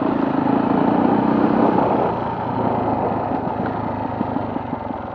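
Off-road motorcycle engine running under way along a trail, the throttle easing off a little toward the end.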